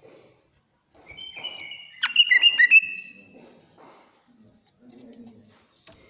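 A cucak ijo (green leafbird) gives one short burst of loud, shrill whistled notes about two seconds in, lasting about a second.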